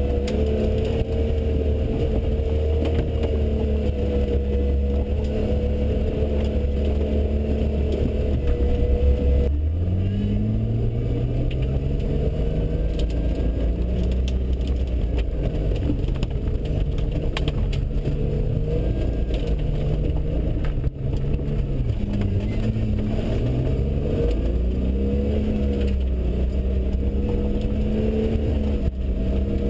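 Jeep Wrangler TJ's engine heard from inside the cab while off-roading. It holds a deep steady drone for about the first ten seconds, then revs up with a rising pitch and keeps rising and falling with the throttle.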